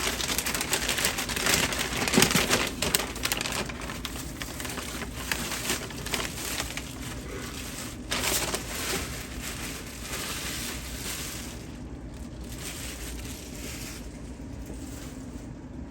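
Rustling and crinkling of packaging being handled, in many quick crackly strokes, loudest in the first few seconds and thinning out near the end.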